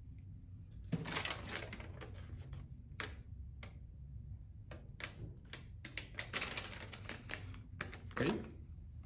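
A folded paper sheet crinkling and rustling as it is handled and unfolded: irregular crackles and snaps from about a second in.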